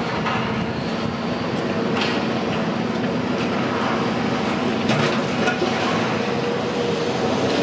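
Steady mechanical rumble with a constant low hum under an even wash of noise, broken by a couple of faint knocks about two and five seconds in.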